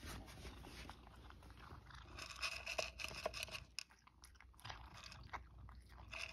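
Cat crunching dry kibble, chewing in bursts with short pauses between mouthfuls.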